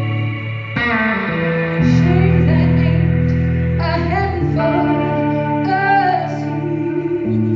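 A band playing a song: a woman singing over guitar and held chords, with the chord changing about a second in.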